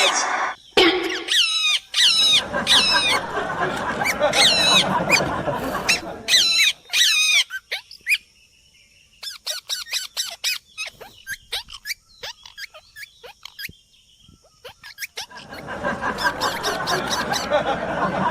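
Parrots squawking and chattering, with repeated wavering shrill calls over a dense jumble of chatter. The calls give way to short chirps and clicks midway, and the chatter builds again near the end.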